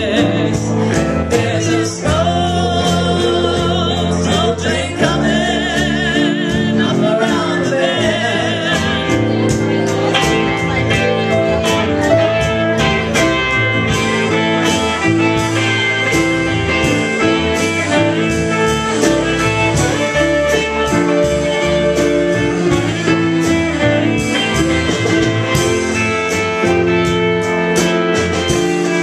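Live band music in a blues-gospel style: guitars over a steady strummed beat, with a wavering, vibrato lead line in the first several seconds.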